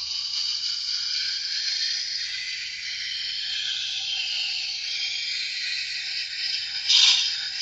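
Kitchen knife blade being ground back and forth on a wet sharpening stone: a steady scraping hiss, briefly louder near the end.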